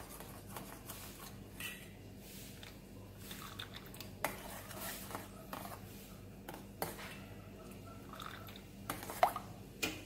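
A spoon stirring melted margarine in a stainless steel bowl over a pan of hot water, with soft squishing and a few light clinks of the spoon against the bowl, the sharpest near the end. A low steady hum runs underneath.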